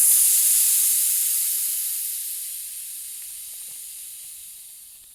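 Air hissing out of a mountain-bike inner tube through a Schrader valve whose core is held down with an Allen wrench. The hiss is loud at first and fades steadily as the tire empties.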